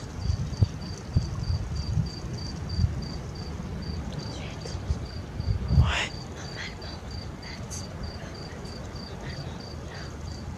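A cricket chirping steadily, about five short high-pitched chirps a second. Irregular low thumps buffet the microphone in the first few seconds and again just before six seconds in, together with a brief whistle that falls in pitch.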